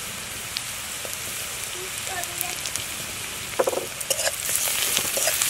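Onions, bay leaves, dried chillies and freshly added garlic paste sizzling in hot oil in a metal karahi, with a spatula scraping and stirring the pan. The sizzle grows louder about four and a half seconds in as the stirring gets going.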